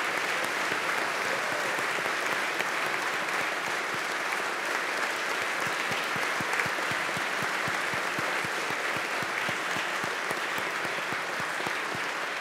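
Sustained applause from a large seated audience of legislators, steady and even. Single close-by claps stand out distinctly through the second half.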